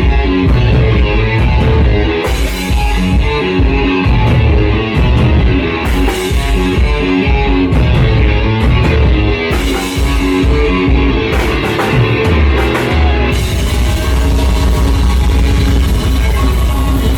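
Loud live heavy rock music led by a distorted electric guitar through an overdriven amp, over a heavy low end. About 13 seconds in, the busy playing gives way to a long held low note.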